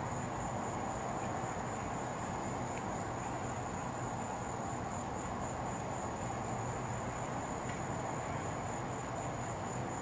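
Crickets trilling in one steady, high-pitched drone over a constant low hum and hiss.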